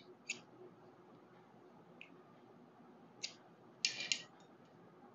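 Scissors cutting fabric: a few faint short snips, then a louder, longer rasp about four seconds in.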